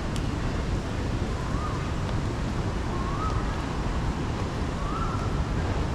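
Loud, steady low rumble of city traffic and wind buffeting the microphone. A faint short tone that rises, holds briefly and falls repeats four times, about every second and a half to two seconds.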